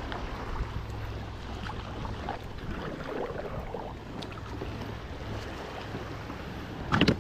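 Wind rumbling on the microphone and water washing around a kayak at sea, with a few faint knocks. A short louder knock-like sound comes near the end.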